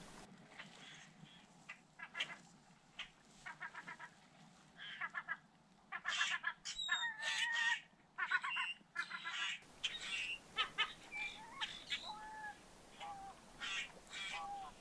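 Great blue herons giving a rapid run of harsh, rasping squawks, many calls close together. About ten seconds in the sound changes to sparser calls from other birds.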